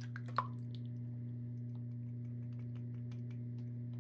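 An egg being cracked and dropped into a stainless-steel bowl of steamed broccoli: a sharp tap about half a second in, then faint scattered clicks and ticks. A steady low hum runs under it all.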